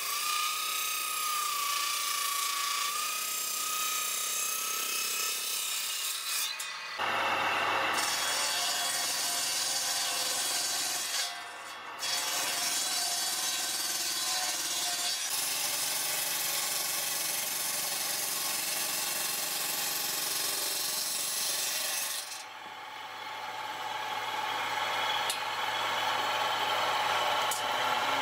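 Table saw's circular blade cutting through wood: a steady whine over the hiss of the cut. Several takes follow one another, and the sound changes abruptly where they join.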